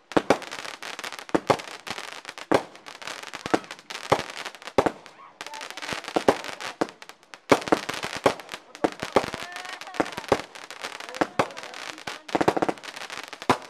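Aerial fireworks going off: a string of sharp bangs and pops, irregularly spaced, over a steady crackle. There is a brief lull about seven seconds in, then a loud bang, and near the end a rapid run of cracks.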